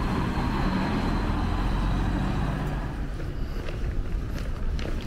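Highway coach driving away, engine and tyres rumbling steadily and then dropping off about three seconds in, leaving quieter street noise with a few light clicks.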